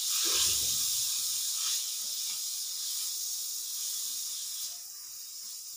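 Shredded cabbage and capsicum sizzling in hot oil in a wide aluminium wok while being stir-fried with a spatula, a steady hiss that eases slightly near the end.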